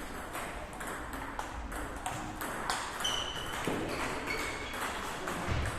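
Table tennis balls clicking off bats and tables: many sharp hits at irregular intervals, some with a short high ping.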